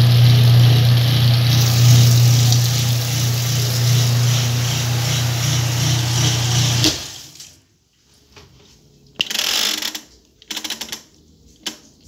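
Whirlpool top-load washing machine running with a loud steady hum and rushing water, which cuts off suddenly about seven seconds in. A few short clicks and rattles follow as the timer dial is handled.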